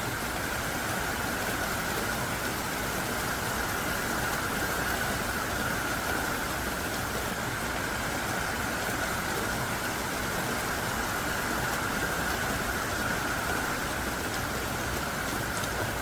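Heavy rain falling steadily in a dense, even downpour.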